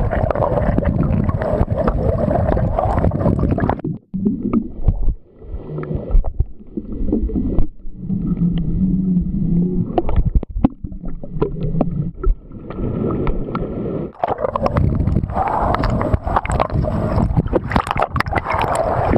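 Water sloshing and gurgling around a camera held in the sea, with many small knocks from handling. About four seconds in the sound turns dull and muffled, and about fourteen seconds in it turns brighter again.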